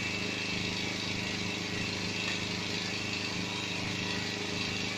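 Honda EG1000 portable generator's engine running steadily on gas fuel through a converter kit, holding an even speed under a load of lit lamps.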